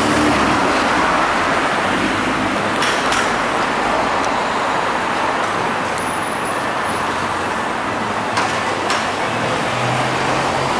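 Street traffic: cars driving past and over the level crossing, with steady road and tyre noise and a few short sharp knocks.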